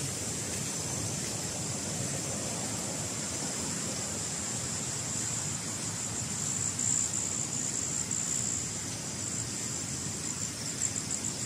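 Steady rushing of a river or stream, with insects chirring high and continuously over it; near the end the insect chirring grows louder and breaks into quick pulses.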